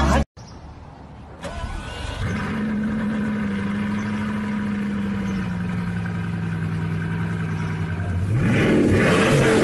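Car engine running at a steady idle hum that comes in about two seconds in, then revving near the end with its pitch rising and falling.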